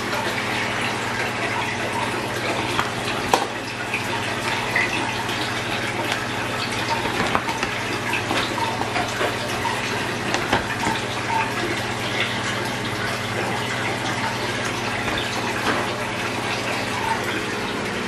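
Steady running and bubbling water from a fish pond's circulation and aeration, with a steady low hum underneath. A few brief clicks stand out over it.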